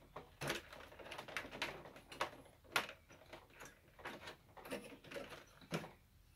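Plastic clicks and knocks as the top fan guard of a Balmuda AirEngine air purifier is released by its hidden pillar buttons, pops up and is lifted off its housing. The clicks come irregularly, about a dozen of them, the sharpest a little before the middle.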